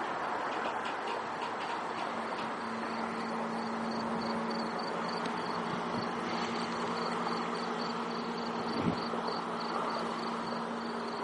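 Freight train rolling past with a steady rumble and a few rhythmic wheel clicks near the start. From about four seconds in, insects chirp in a regular high pulse above it.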